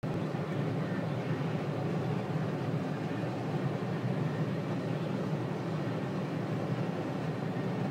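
Tractor engine running steadily, heard from inside the cab as a constant low drone.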